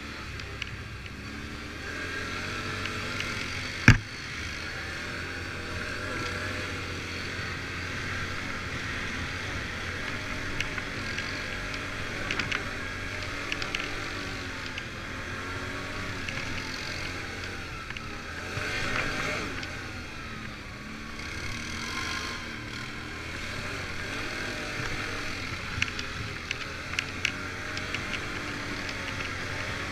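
Quad bike engine running over a rough forest track, its pitch rising and falling with the throttle, with scattered clicks and one sharp knock about four seconds in.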